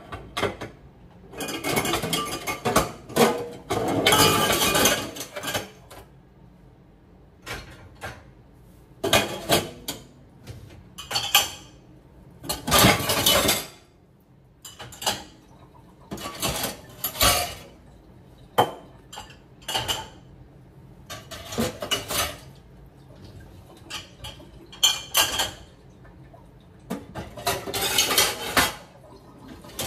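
Dishes, cups and cutlery clattering and clinking in irregular bursts as they are handled in a stainless steel sink and loaded into a dishwasher rack.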